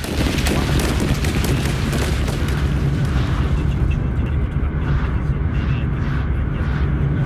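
Rapid automatic gunfire crackling over a deep, steady low rumble; the crackle of shots thins out after about three seconds, leaving mostly the low rumble.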